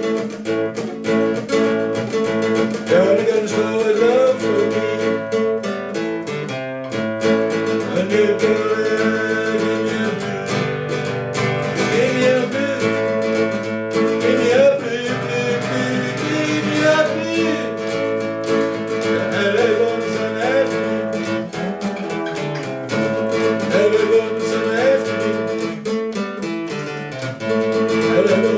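Music: acoustic guitar playing steadily, with sung or sliding melodic notes over it.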